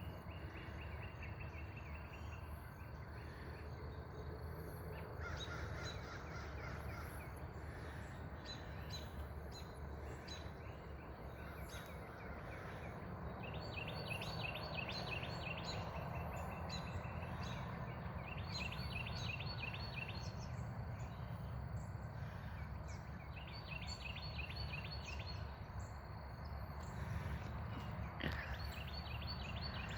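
Wild birds singing and calling outdoors, several songs of quick repeated chirps coming in bursts every few seconds, over a steady low rumble.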